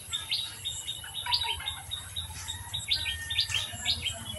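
Small birds chirping: a scattered run of short, sharp, high chirps, coming more thickly in the second half.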